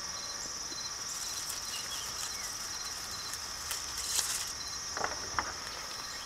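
Crickets trilling in a steady, high, unbroken drone, with a second insect pulsing more softly beneath it. A few faint clicks come about four and five seconds in.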